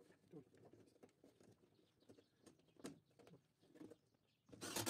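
Faint scattered clicks and scrapes of hands fitting wires into the terminals of an RCCB in a metal electrical panel, with one louder brief noise near the end.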